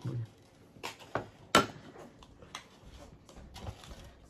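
Scattered light clicks and taps of tableware being handled at a dinner table: plates set down and utensils moved, with one sharper knock about one and a half seconds in.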